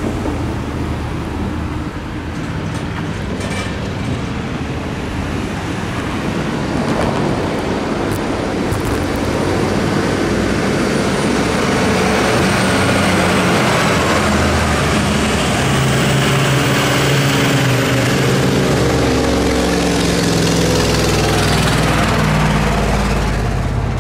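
Road traffic crossing the tracks: car and truck engines and tyre noise, steady and getting louder from about halfway through as pitched engine notes rise and fall.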